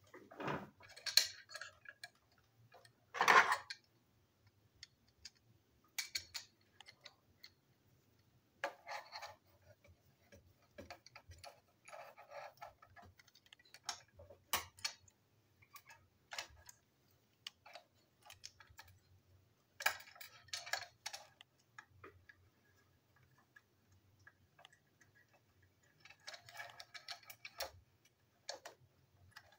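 Small toy train engine parts being handled and fitted together on a tabletop: scattered clicks, taps and short rattles of the pieces, with two louder knocks in the first few seconds.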